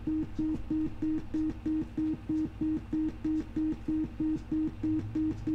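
Sine wave from a DIY modular synthesizer's voltage-controlled oscillator, chopped on and off by a gate signal through an analog switch module: a steady mid-low tone beeping about three times a second, over a faint low hum.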